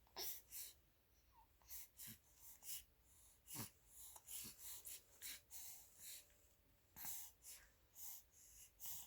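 Six-week-old baby breathing close to the microphone: faint, irregular puffs of breath, roughly two a second.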